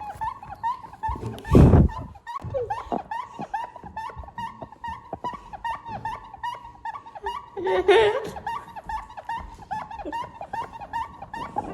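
A steady run of short high squeaks, several a second, with a sudden thump about two seconds in and a louder, longer squeal around eight seconds.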